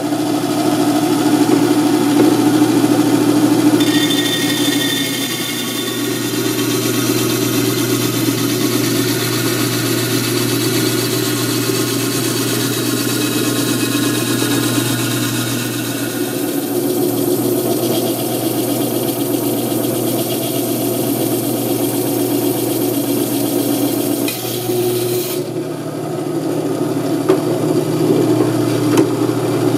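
Gryphon C-40 diamond band saw running, its thin diamond blade grinding through a glass bottle over a steady motor hum.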